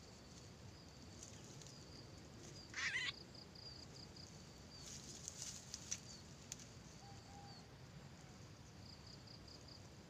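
Faint, steady high trilling of insects in dry scrub. One short, loud, harsh burst comes about three seconds in, and dry brush crackles and rustles around five to six seconds.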